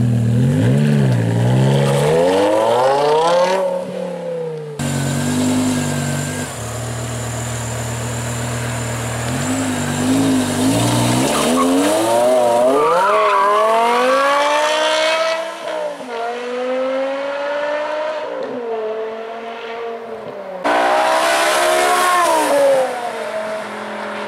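Supercar engines accelerating and running past in a string of clips, with abrupt cuts between them. The engine pitch climbs and drops repeatedly as they rev. About five seconds in there is a steadier, lower note for a few seconds.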